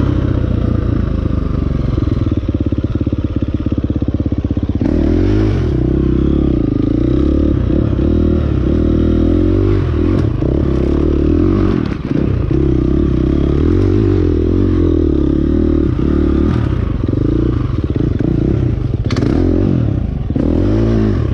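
Husqvarna FX 350 four-stroke dirt bike engine climbing a hill. It runs steadily for about five seconds, then revs up and down over and over as the throttle is worked. Near the end there is a sharp knock.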